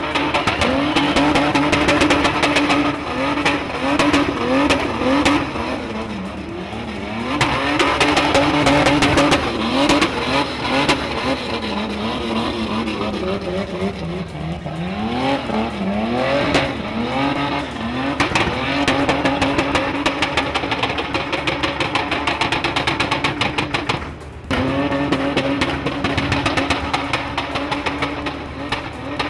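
SUV engine held at high revs while the vehicle is drifted in circles, its pitch swooping up and down several times as the throttle is worked, with tyres squealing and scrubbing underneath. The sound breaks off briefly near the end, then the high revs resume.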